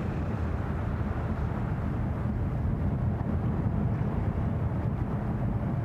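Steady low drone of a large propeller aircraft's engines, a continuous rumble.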